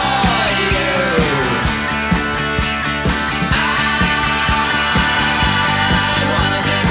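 Rock music with a steady drum beat and guitar, an instrumental stretch with no singing; guitar lines slide down in pitch near the start and slide up again about halfway through.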